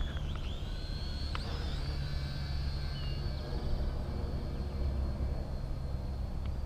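XK X260 brushed-motor quadcopter in flight: a high whine from its motors that bends up and down in pitch as the throttle changes, over a steady low rumble.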